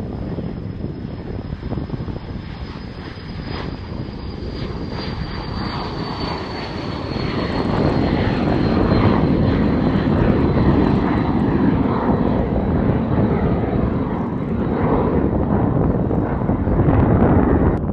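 Airplane engines running as an aircraft moves along the runway or taxiway, growing louder about halfway through. A high whine slowly falls in pitch.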